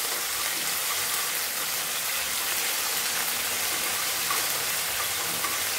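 Ginger-garlic paste and green chillies sizzling in hot oil in a kadai as they are stirred: a steady, even frying hiss.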